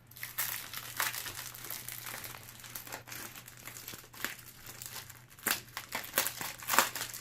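Plastic packaging crinkling as it is handled and pulled open, in irregular crackles that grow louder near the end.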